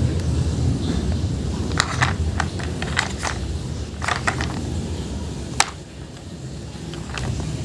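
Scattered sharp clicks and knocks, several close together in the middle and a single one later, over a steady low rumble.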